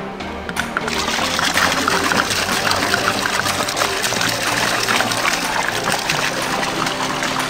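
Carbonated soda trickling and fizzing, setting in about a second in, with background music underneath.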